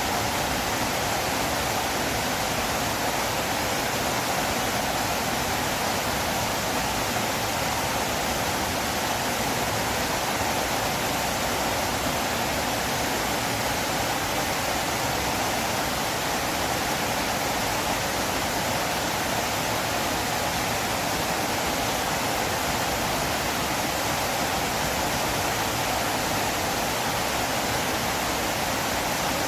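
Steady rushing of flowing river water, an even, unchanging wash of sound.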